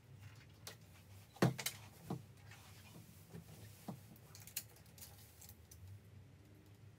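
A handful of light clicks and knocks from hands and a pencil handling a white interior door and its lever handle while marking out a lock position, the loudest about a second and a half in. The footage is played back sped up.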